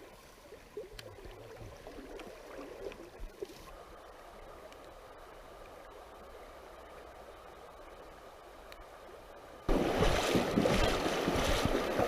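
River water running in a steady rush, with a few faint knocks over the first few seconds; about ten seconds in the rushing suddenly gets much louder.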